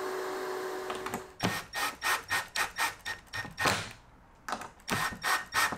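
A steady hum stops about a second in. Then a hand tool works on the pine door frame's hinge recesses in quick, even scraping strokes, about four a second, with a short pause near the middle.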